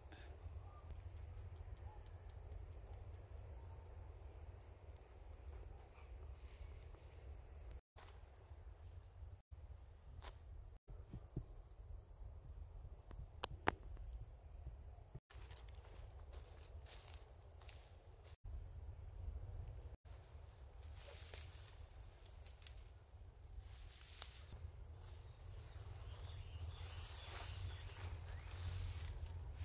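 Insects trilling in a steady, high, cricket-like chorus, with a low rumble underneath. A few very short dropouts break the sound, and there are a couple of sharp clicks about halfway through.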